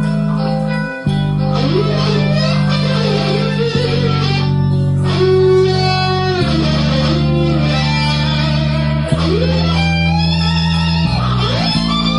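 Instrumental intro of a rock ballad: an electric lead guitar plays a melody with sliding, bending notes over sustained bass and chords that change every couple of seconds. There is no singing.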